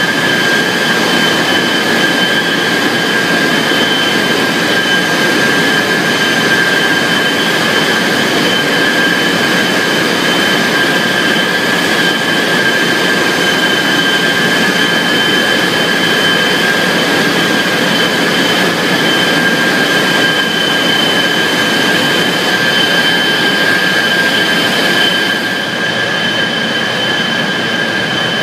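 Steady poultry-processing machinery noise with a high, steady whine, over vigorously churning water in a stainless-steel tank. It drops slightly in level near the end.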